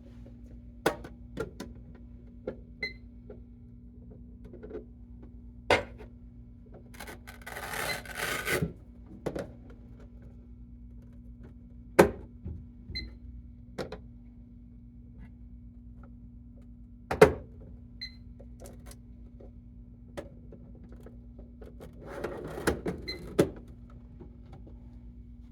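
Watch winder units being handled and set in place: scattered sharp knocks and clicks of the housings, with two short stretches of rubbing or rustling, over a steady low hum.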